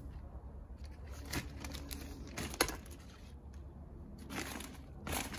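Plastic bag of soil crinkling and rustling as soil is tipped out slowly, with a few sharp crackles.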